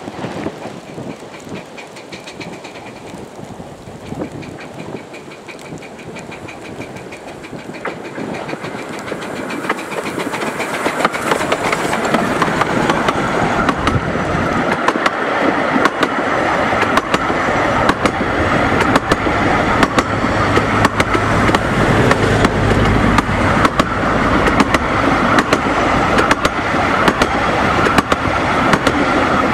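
Bure Valley Railway steam locomotive No. 7 Spitfire and its coaches approaching and passing. A faint high whistle tone sounds in the first few seconds. From about ten seconds in the train grows louder, and the wheels click steadily over the rail joints as the coaches run past.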